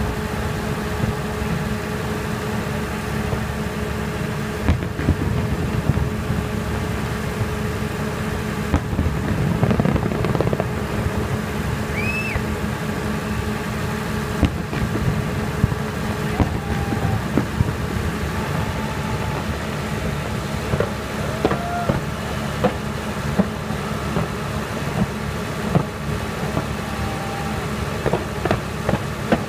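Fireworks display going off: a dense low rumble of launches and bursts that swells about a third of the way in, with sharp bangs scattered throughout that come more often near the end.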